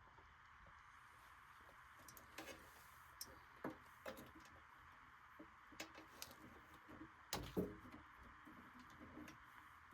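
Faint scattered clicks and small knocks of hands handling meter probes and wiring, over a steady low hiss; the loudest knocks come about seven and a half seconds in.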